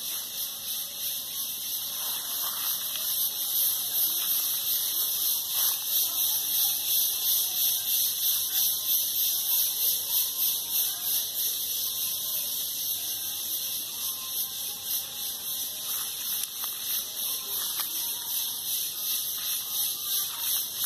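Cicadas buzzing in a loud, continuous high-pitched chorus that swells and fades in quick pulses.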